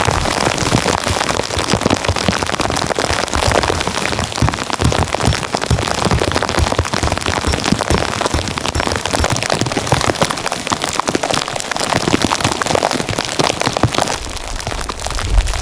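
Precipitation pattering steadily on a surface, a dense and irregular patter of many small hits. A low rumble comes in near the end.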